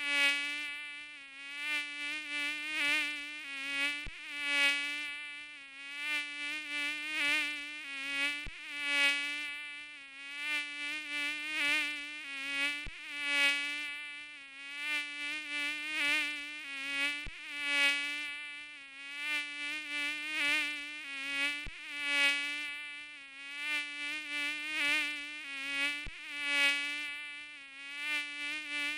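Mosquito wingbeat whine, a steady pitched buzz that swells and fades every couple of seconds as if flying close past the ear. A faint click comes about every four seconds, and the same pattern repeats after each one.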